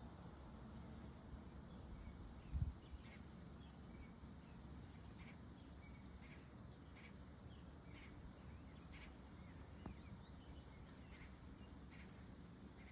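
Faint birds singing outdoors: scattered short chirps and a couple of rapid, high trills over a low background rumble. A single brief low thump comes about two and a half seconds in.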